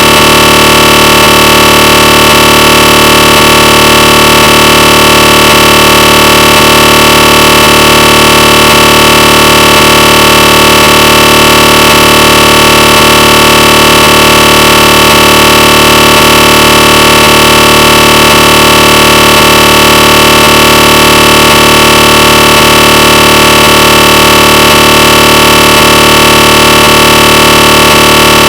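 Synthesized recreation of a GE 1.5T SIGNA Victor MRI scanner running a T1 sequence: a loud, steady electronic drone of several held tones, with a faint regular tick about every two-thirds of a second.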